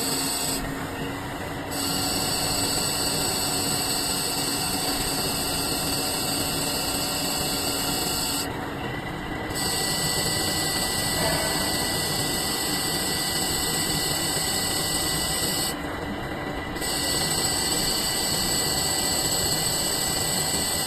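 CNC lathe machining a cylinder into a sphere: steady machine running noise with a high hiss that drops away for about a second three times, at regular intervals.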